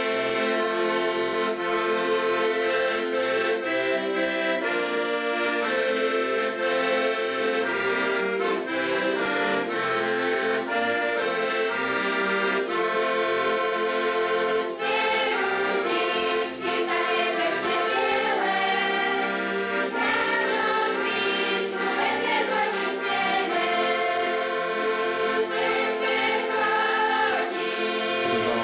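Accordion playing a lively traditional folk tune.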